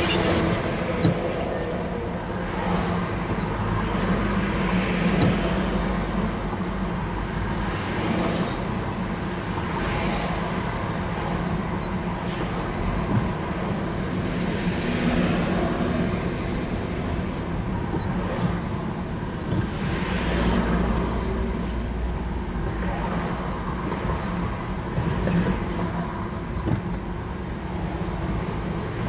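Steady road noise from a car driving on a highway, with tyre and engine hum and other vehicles swelling past every few seconds.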